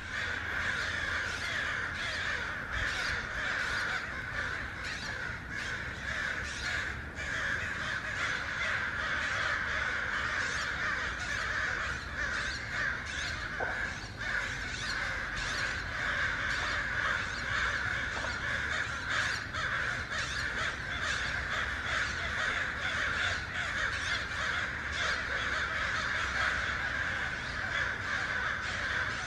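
A large flock of crows cawing, many calls overlapping without a break.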